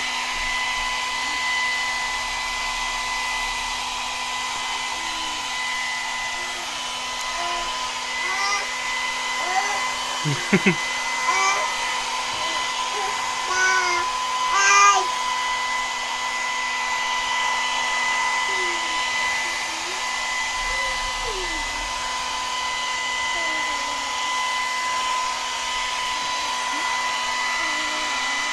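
Hair dryer blowing steadily, its motor giving a constant whine over the rush of air. Short high squeals and coos from a baby come in bursts through the middle.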